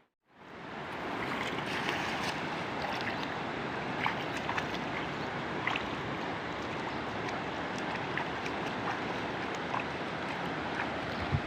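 Steady rushing of water, with scattered small ticks and splashes through it; it fades in from silence right at the start.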